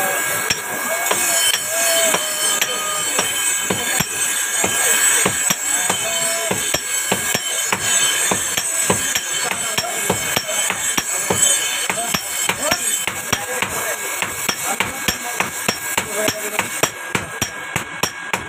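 Blacksmiths' hand hammers striking iron on anvils: many rapid metallic strikes, each with a short ring. Near the end they settle into an even beat of about three strikes a second.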